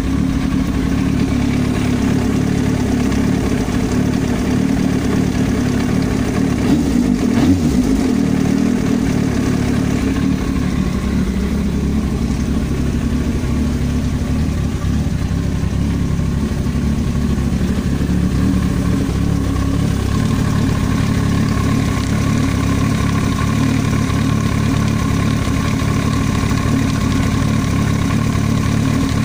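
Yamaha YZF-R1 inline-four engine running at idle, with a short swell about seven seconds in. It makes a knocking noise that the owner puts down to an extraneous noise in the cylinder head.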